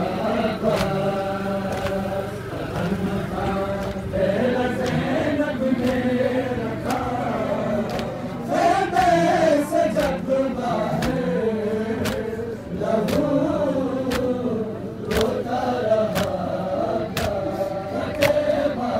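A group of men chanting an Urdu noha, a Muharram mourning lament, in unison. Sharp slaps of matam, hands beating on chests, keep time about once a second.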